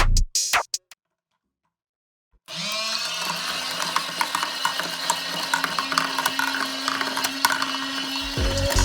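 Small battery motor of a toy washing machine starting up about two and a half seconds in and running with a steady whir, with water churning and light clicks.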